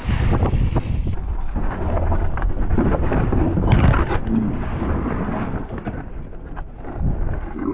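Slowed-down audio from a helmet or bike camera on a mountain bike: a deep, rough rumble of wind and tyre noise with scattered knocks. About a second in the sound turns duller, as the playback slows.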